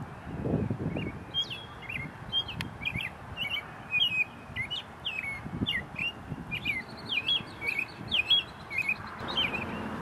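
American robin singing: a run of short, clear whistled notes that rise and fall in pitch, starting about a second in.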